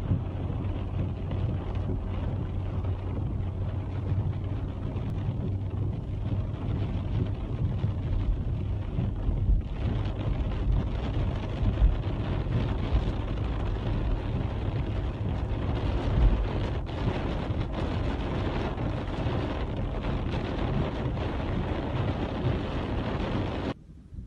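Wind buffeting the microphone, a steady rushing noise heaviest in the low end with scattered faint ticks, cutting off suddenly near the end.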